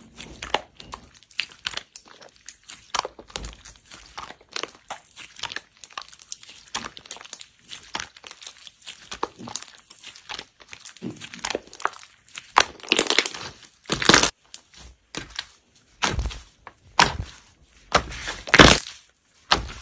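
Clear blue slime with green beads being stretched and pulled by hand, giving a run of sticky clicks and crackling pops. The pops come thicker and louder about two-thirds of the way in.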